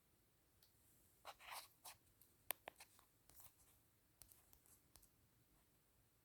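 Faint rustling and scratching with a handful of small sharp clicks, like something being handled close to the microphone, starting about a second in and dying away near the end.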